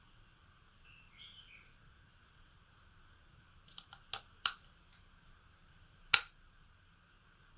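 A few sharp clicks: three quick ones between about three and a half and four and a half seconds in, then a louder single click about six seconds in. These sit over a faint steady hum, with a few faint short chirps earlier.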